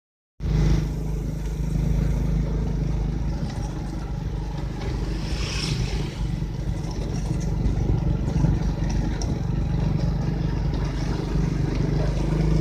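A bentor's motorcycle engine running steadily as it rides along a street, with road and wind noise. The sound drops out for a split second at the start, and a short hiss comes about five and a half seconds in.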